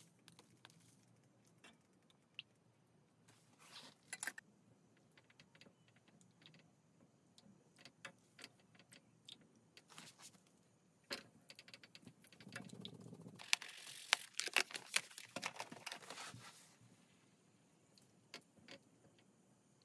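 Metal spoon and silicone spatula clicking and scraping against a stainless steel saucepan as milk is stirred, in scattered light taps; a louder spell of brisk stirring and scraping runs for about three seconds past the middle.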